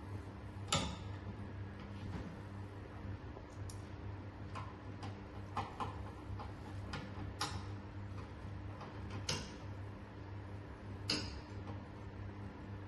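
Sharp, irregular clicks and taps, about ten of them with the loudest about a second in, as hands work parts and screws on the top panel of a hydrofacial machine during assembly. A steady low hum lies under them.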